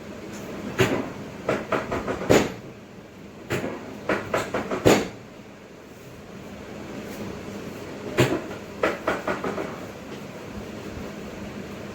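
Three runs of quick, sharp clicks and knocks, several in each run: one about a second in, one around four seconds in, and one near eight seconds in.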